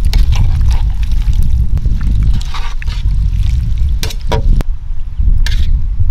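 Perforated metal ladle stirring a watery vegetable curry in an aluminium pan: liquid sloshing, with a few sharp scrapes and clicks of the ladle on the pan in the second half, over a steady low rumble.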